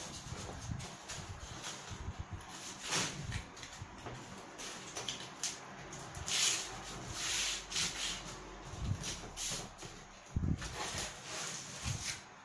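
Cardboard strips being handled and pressed into place on a worktable as a tray's sides are glued together: irregular rustling and scraping with a few light knocks, the loudest scrape about six and a half seconds in.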